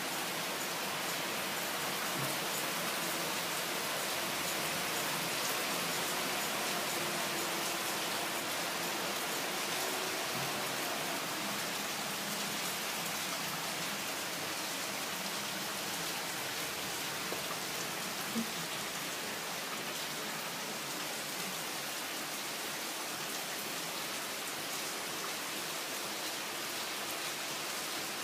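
Very heavy rain pouring down steadily, a dense even hiss of drops hitting surfaces, with one brief knock about eighteen seconds in.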